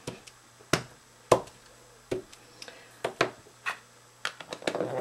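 A rubber stamp being pressed repeatedly onto card stock on a table, making sharp taps at irregular intervals that come faster near the end.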